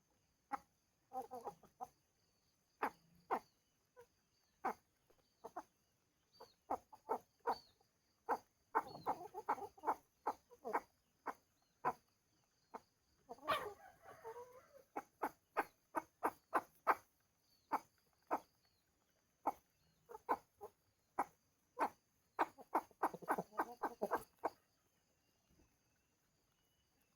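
Chickens clucking: short calls in irregular clusters, busiest about a third of the way in, around the middle and shortly before the end.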